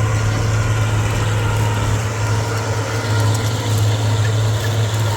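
Tractor engine running steadily under load while pulling a tillage implement through the field, a constant low drone with mechanical rattle above it.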